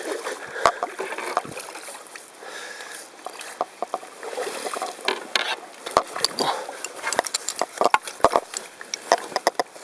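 Canoe paddling in shallow, reedy water: paddle strokes splashing, with many scattered sharp knocks and clicks of gear against the canoe.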